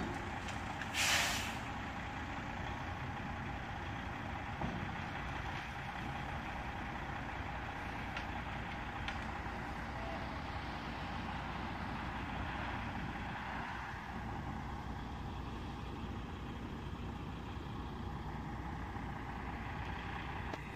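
Distant dump truck's diesel engine running steadily, with a short hiss of air about a second in.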